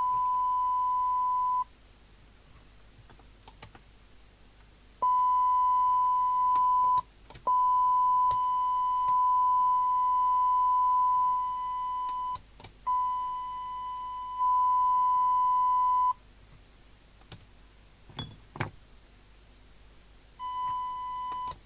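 Steady test tone from the signal generator, heard through the SMC Oscar CB radio's loudspeaker, cutting in and out as the squelch is adjusted to open at the wanted signal level. It stops about two seconds in, returns in three stretches from about five to sixteen seconds, and comes back near the end, with faint clicks in the gaps.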